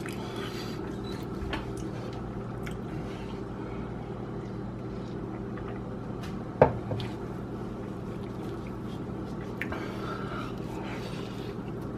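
Close-miked wet chewing and mouth sounds of eating a bologna tortilla, with scattered soft clicks and one sharp loud click about six and a half seconds in, over a steady low hum.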